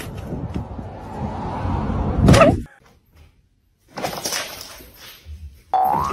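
A car door swinging shut, ending in a loud slam about two seconds in.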